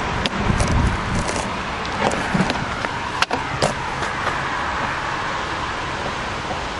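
Riding noise from a camera mounted on a moving bicycle: a steady rush of wind and rolling noise with several short clicks and rattles, the sharpest about three seconds in, as the bike crosses from paving onto the road surface.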